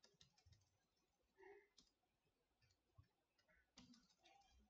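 Near silence with faint, scattered computer keyboard clicks from typing.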